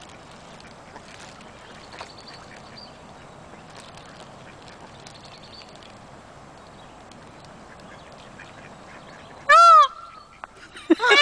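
Indian peafowl (peacock) giving loud, harsh honking calls, twice near the end, each one rising then falling in pitch.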